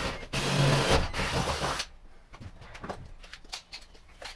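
Power drill boring a pilot hole overhead up through the cabin ceiling and roof. It runs in two spells with a brief break just after the start and stops at about two seconds in, followed by light clicks and handling noises.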